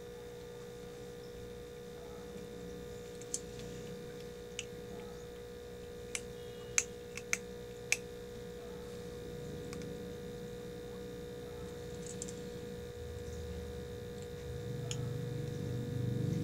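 A kitten eating from a metal plate: a scattering of sharp, sparse clicks and crunches as it chews and its teeth knock the plate, over a steady electrical hum. A low noise builds near the end.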